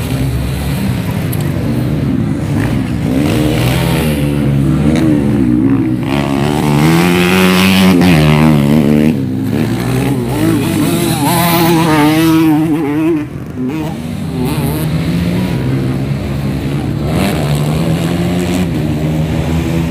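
Racing dirt bike engines revving, their pitch climbing and falling with throttle and gear changes as the bikes go past. The two loudest passes come in the middle, and each ends suddenly.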